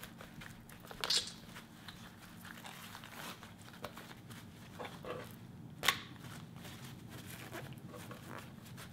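Paper towel crinkling and rubbing against wet squid as the skin is peeled off a raw squid body, in scattered soft rustles with two sharper crackles about one second and six seconds in, over a faint steady hum.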